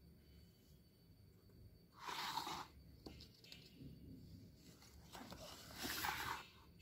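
Pages of a paper picture book being turned by hand: two papery rustles, a short one about two seconds in and a longer one near the end.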